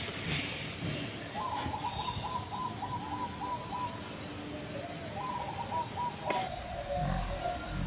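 An animal's quick pulsing call, heard twice, each burst one to one and a half seconds long.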